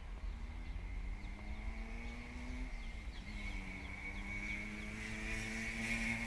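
Distant engines running: a steady low rumble under a faint, even engine hum, with a hiss building near the end.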